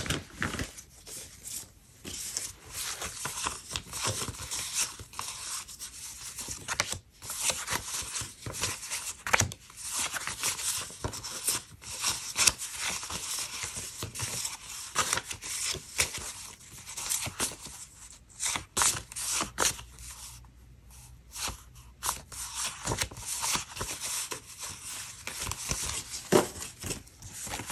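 Paper sticker sheets being handled and leafed through at close range: crisp rustling, light scrapes and small clicks, coming and going in irregular bursts.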